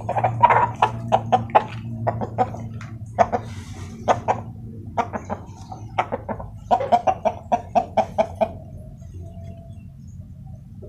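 A chicken clucking in runs of short calls, quickest at about four a second toward the end, then stopping about eight and a half seconds in. A low steady hum runs underneath.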